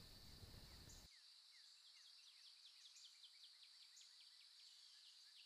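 Near silence with faint birdsong: many short, high, falling chirps starting about a second in, over a faint steady high tone.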